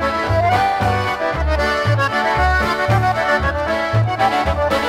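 Chicago-style polka band playing an instrumental passage, a concertina carrying the melody over a bouncing two-beat bass.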